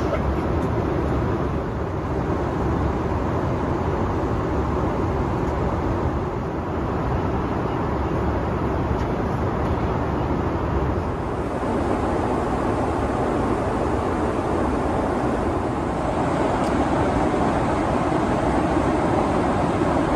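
Steady cabin noise inside a Boeing 777 airliner in flight: an even, deep rush of airflow and engine noise with no breaks. It gets slightly louder late on.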